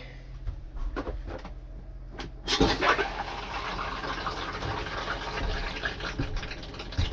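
RV toilet's flush valve opened about two and a half seconds in, with water rushing steadily into the bowl to fill it and prime the black tank.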